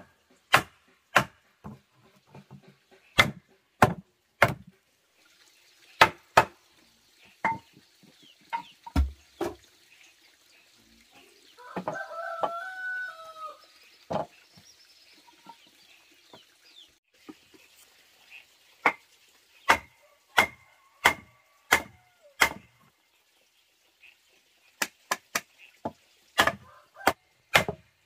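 Irregular sharp knocks of a wooden mallet striking timber, sometimes several a second, with a pause midway. About twelve seconds in, a rooster crows once for about two seconds.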